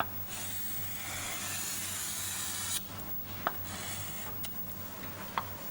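Drawing strokes scratching across a writing surface for about two and a half seconds, followed by a few faint clicks, over a low steady electrical hum.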